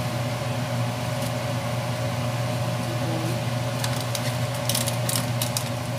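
Steady low mechanical hum from a kitchen appliance or fan. About four seconds in, a cooking utensil clicks and knocks several times against the stainless steel pot.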